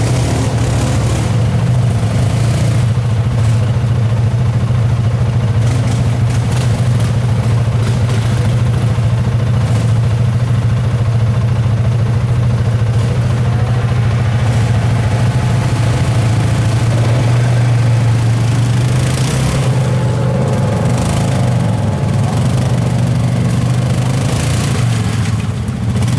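ATV engine running steadily at low revs while the quad crawls through a deep muddy rut, with only small changes in engine speed.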